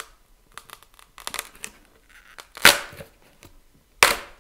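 A hot-glued PVC strip being broken away from a cured epoxy panel: a string of small cracks and crackles as the hot glue lets go, then two sharp snaps, one just past the middle and one near the end.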